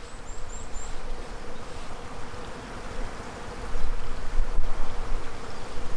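A steady insect buzz over a low rumble, with four faint, quick high chirps in the first second.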